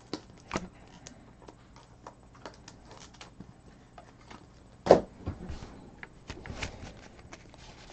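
Trading cards being handled on a tabletop: scattered light clicks and taps, one sharp knock about five seconds in, then scraping and rustling as a stack of cards is picked up.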